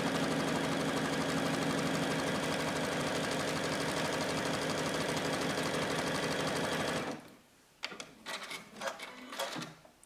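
Juki UX8 computerized sewing machine running steadily while sewing a zigzag stitch, stopping abruptly about seven seconds in. A few light clicks and fabric-handling rustles follow.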